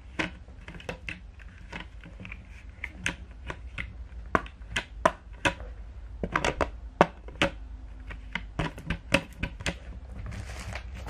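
Plastic cat flap worked by hand: the clear swinging flap clacks against its frame in a quick, irregular run of sharp clicks, two or three a second, with a short rustle near the end.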